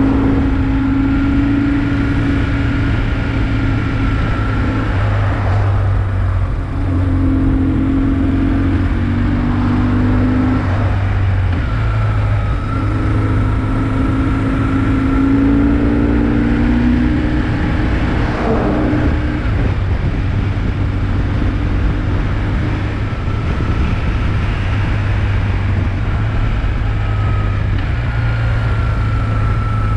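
BMW motorcycle engine running under way, with wind rushing past the on-bike microphone; the engine note swells and fades several times and steps in pitch as the throttle opens and closes and gears change.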